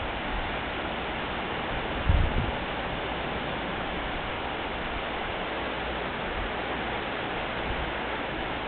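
Steady rushing noise of wind on the microphone and surf at a beach, with a brief low thump about two seconds in.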